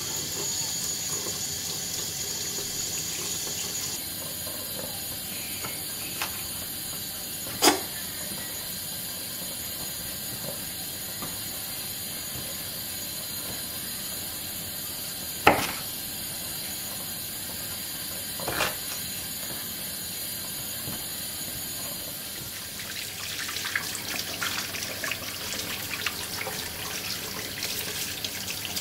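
Water running steadily, as from a tap, with three sharp knocks spread through the middle. Near the end the sound turns uneven and crackly.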